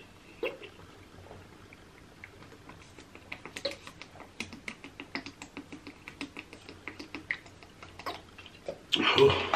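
Close-miked eating sounds: quick, irregular wet smacking and chewing clicks. A loud burp comes right at the end.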